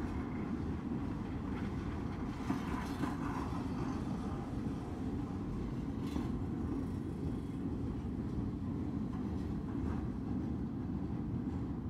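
Norfolk Southern mixed freight train moving slowly: a steady low rumble of the train rolling on the rails, with a few faint sharper sounds about two and a half and six seconds in.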